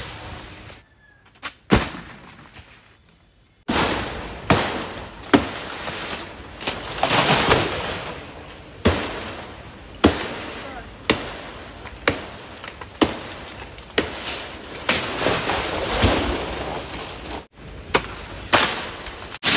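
Sharp chopping strokes, roughly one a second, as a palmyra palm's fronds and fruit bunches are cut at the crown, with rustling of the fronds between strokes. The first few seconds are quieter.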